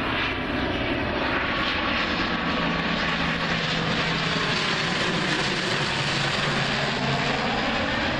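ATR twin-turboprop airliner on final approach with its gear down, its engines and propellers making a loud, steady drone as it passes low overhead. A low propeller hum drops slightly in pitch about six seconds in as the aircraft goes by.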